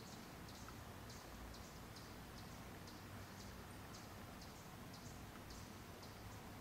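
Faint, high-pitched chips repeated about twice a second, from a baby Black-tailed Trainbearer hummingbird, over a low steady background hum.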